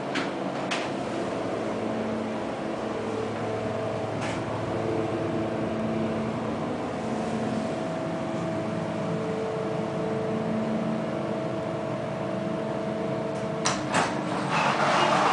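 Montgomery hydraulic elevator car travelling, heard from inside the cab: a steady hum with a whining tone, with a few clicks near the start. Near the end the whine stops with two sharp clicks as the car comes to a stop, and a brief rush of noise follows.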